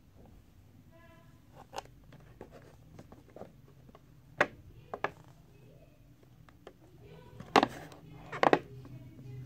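Cardboard toy box handled and turned in the hands: fingers rubbing and tapping on the box, with scattered sharp taps, the loudest two near the end.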